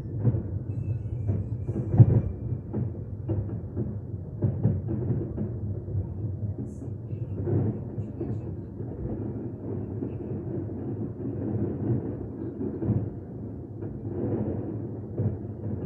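Aerial fireworks shells bursting one after another, many booms in quick succession over a continuous rumble, the loudest bang about two seconds in.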